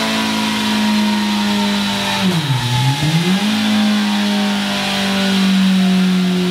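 Kawasaki Z900's 948 cc inline-four running hard on a dyno through a Scorpion RP1-GP slip-on exhaust. The revs sag slowly, then drop sharply about two and a half seconds in and climb straight back, before easing gradually down again.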